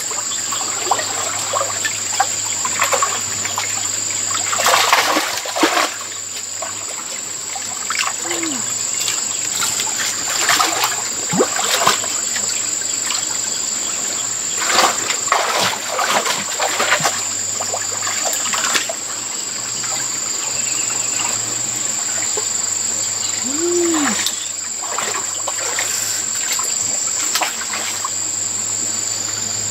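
Shallow stream water splashing and trickling as hands grope through it and feet wade, the splashes coming in irregular bursts over a steady trickle.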